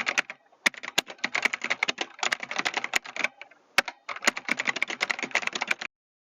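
Rapid clicking like keyboard typing, in three quick runs with short pauses, cutting off about six seconds in.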